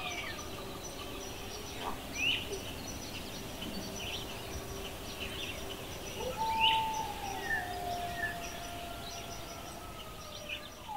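Forest soundscape recording: several birds chirping and calling over a steady background hiss, with long drawn-out whistled calls that slowly fall in pitch, the loudest about six seconds in.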